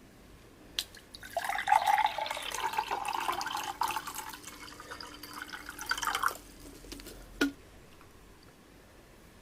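Water pouring and splashing for about five seconds, then a single sharp knock about a second later.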